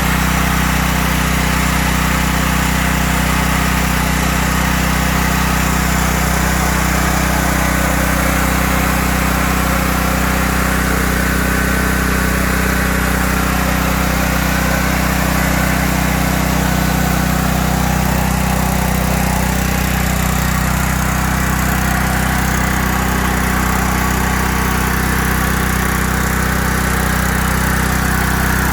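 Briggs and Stratton 5000-watt portable generator's small petrol engine running steadily at constant speed, back in running order after its gummed-up carburetor was cleaned.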